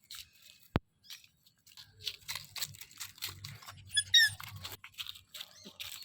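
A puppy giving a short, high-pitched squeak about four seconds in, the loudest sound, among steady rustling and small clicks of handling and movement. A single sharp click comes just under a second in.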